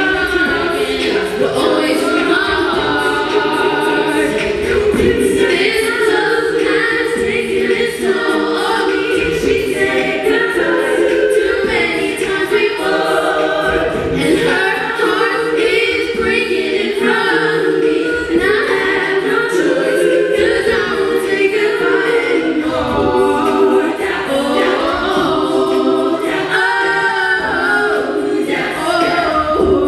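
Women's soprano-alto a cappella group singing through microphones: a lead voice over sustained backing harmonies, with no instruments.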